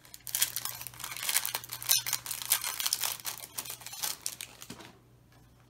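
Clear plastic packaging crinkling as it is handled and opened, with quick crackles for about five seconds before it stops.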